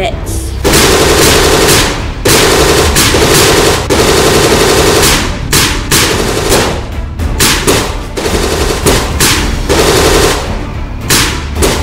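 Repeated bursts of rapid automatic fire, like a machine gun, each lasting a second or two with short breaks between.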